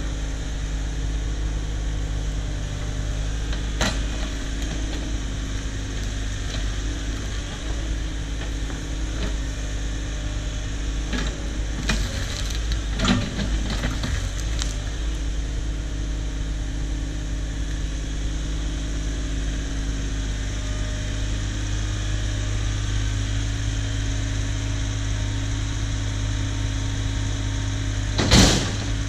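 Cat 304 mini excavator's diesel engine running steadily, with a few knocks and clanks through the middle and one loud thump near the end as logs are handled.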